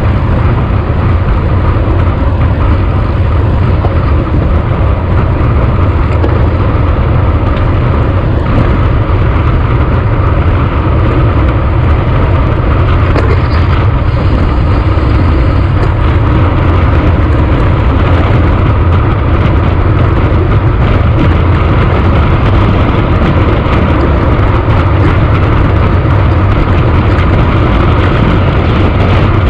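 Steady, loud wind rumble on the microphone of a handlebar-mounted camera on a road bike moving at about 60–70 km/h, mixed with road noise from the tyres.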